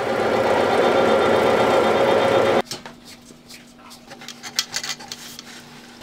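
A machine running loudly with a steady hum, cutting off abruptly about two and a half seconds in. After that comes a quieter low hum with scattered clicks and knocks.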